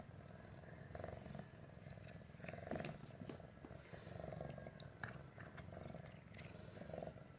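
A kitten purring, a low pulsing purr that swells and eases every second or two.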